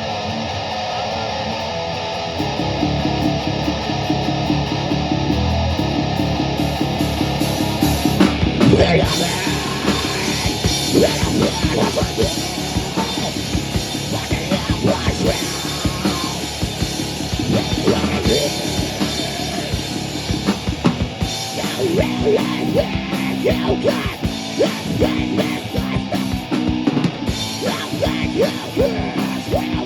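A rock band playing live and loud, with drum kit and electric guitar. A held guitar sound opens it, and the full band comes in about two seconds in.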